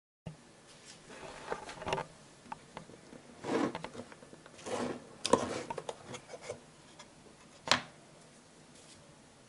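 Hands handling a wooden pistol case: rubbing and knocking on the wood, the lid being opened, and cloth rustling as the wrapping is taken off the derringer inside, with scattered clicks and one sharp click near the end.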